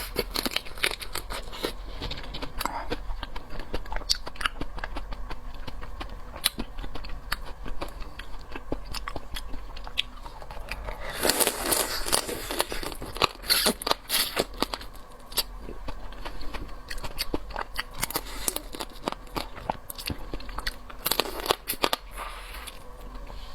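Close-miked eating of a crab: shell cracking and tearing, with crunching, chewing and small wet clicks throughout. Louder bursts of cracking come about eleven seconds in, again around thirteen seconds and near twenty-one seconds.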